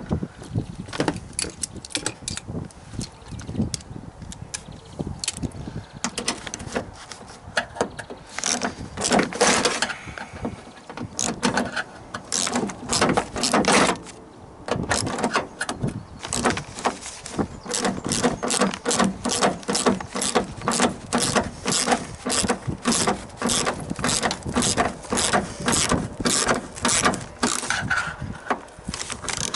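Hand ratchet screwdriver clicking as it is worked back and forth on a stubborn bolt in a car door that really doesn't want to come out. The clicks come in irregular runs at first, then settle into an even rhythm of about three a second.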